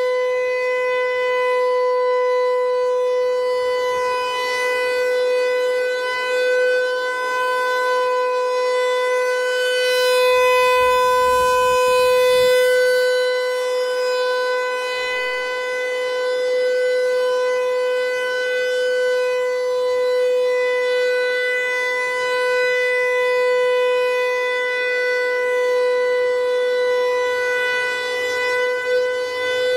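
Federal Signal Equinox electronic warning siren sounding a steady tone on its monthly test, one held pitch whose loudness swells and fades slightly. A brief low rumble comes in about ten seconds in.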